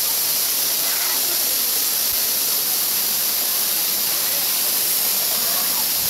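A waterfall pouring close at hand: a steady, loud hiss of falling water and spray.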